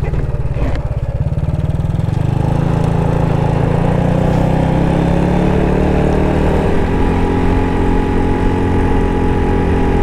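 Honda Wave 110i's single-cylinder four-stroke engine pulling the bike up a hill road. Its note rises steadily for a few seconds and shifts about two-thirds of the way through.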